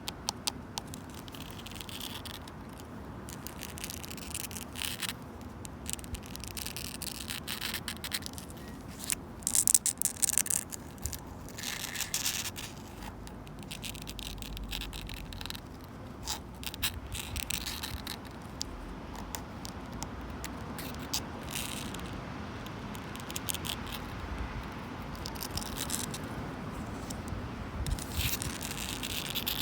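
Long natural fingernails scratching and clawing at a wooden bench, in irregular bursts of short scratchy strokes and clicks, over a low rumble of wind.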